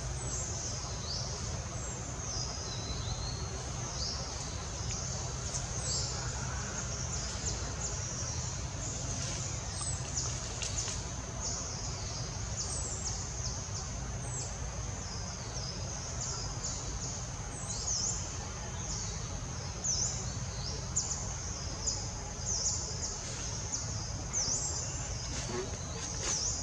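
Forest ambience: a steady high insect drone with many short high chirps running through it, over a steady low rumble.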